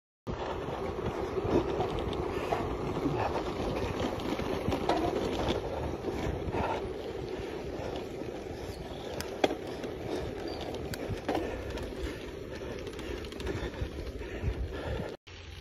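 Gravel bike rolling along an unsealed dirt road: steady tyre rumble and wind buffeting on the microphone, with scattered sharp clicks. It cuts off suddenly near the end.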